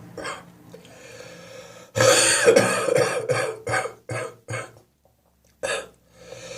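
Wet, wheezy, chesty coughing from a chest cold. A quiet breath, then about two seconds in a long fit of rapid hacking coughs, followed by a few single coughs, a short pause, and one more cough near the end.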